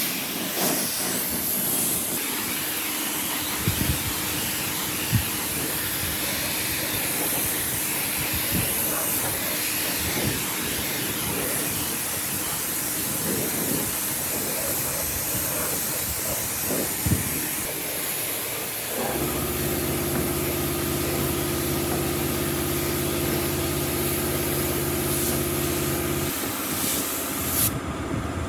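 Steady hissing, like air or spray, with scattered light knocks. About two-thirds of the way through, an electric motor's hum starts, runs for several seconds and stops, and the hiss cuts off near the end.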